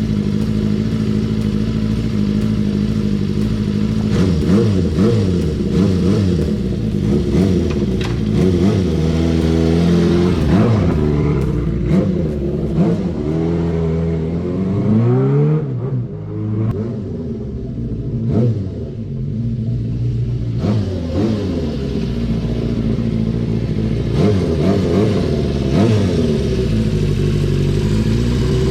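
Honda CB400Four's air-cooled inline-four running through a Yoshimura short exhaust whose silencer is partly repacked with glass wool. It idles steadily at first, then is revved up and down repeatedly from about four seconds in, falling away briefly around the middle.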